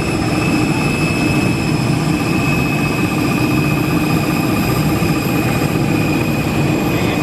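Jet aircraft turbine running steadily: an even rush of noise with a steady high whine over it.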